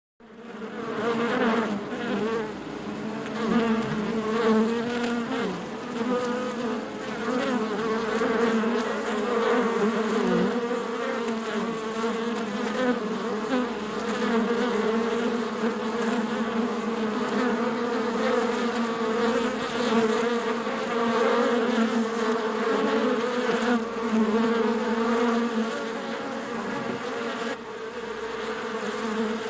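Bees buzzing, many together in a steady, wavering drone that fades in at the start.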